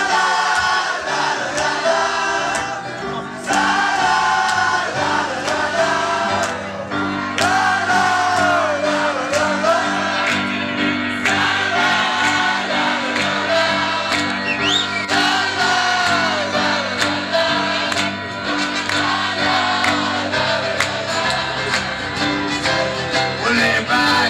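Live acoustic folk-bluegrass band with several voices singing together in choir-like harmony over strummed and plucked strings and a sustained bass line.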